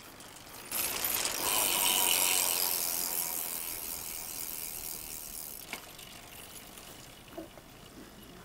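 Mountain bike rear freewheel hub ratchet buzzing as the wheel coasts. It starts suddenly about a second in and fades gradually as the wheel slows, with a few faint clicks near the end.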